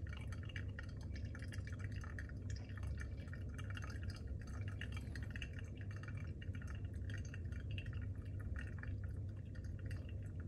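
Brewed coffee dripping and trickling from a Hario V60 dripper into the glass server below, a light, steady patter of small drips. In the last few seconds hot water is poured slowly from a gooseneck kettle onto the Drip-Assist.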